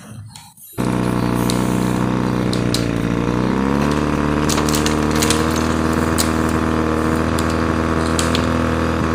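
Steady engine-like drone that starts abruptly about a second in, rises in pitch once a few seconds later as if revving up, then holds level.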